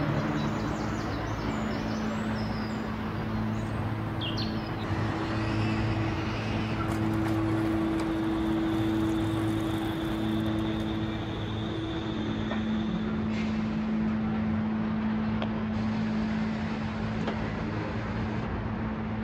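City street ambience: a steady wash of traffic noise with a low hum of a few held tones beneath it, and a few brief high chirps about four seconds in.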